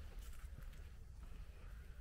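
Footsteps of a walker on a dirt and grass path, about two soft steps a second, over a low steady rumble.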